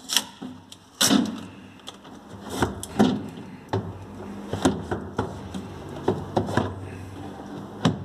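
A series of knocks and thuds, about seven spread over several seconds, with short creaks, from a large multi-door refrigerator being handled.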